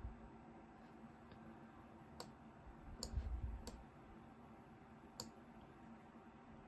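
Four sharp computer clicks spread over a few seconds, with a soft low thump near the middle, over quiet room tone.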